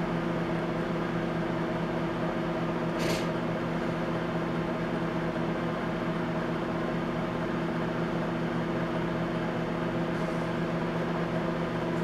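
Dako microwave oven running and heating a glass of water, giving a steady hum with a fan-like whir from its repaired high-voltage transformer, fan and turntable motor. The steady run shows the oven working normally after the transformer repair. A brief faint tick comes about three seconds in.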